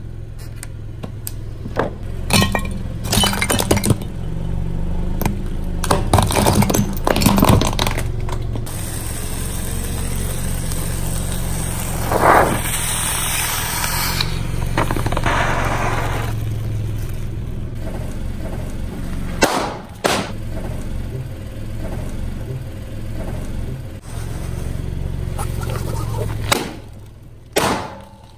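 Car tyre rolling over and crushing plastic toys and other small objects: a run of sharp cracks and snaps, thickest in the first several seconds and again a few times near the end, over the car's steady low engine hum.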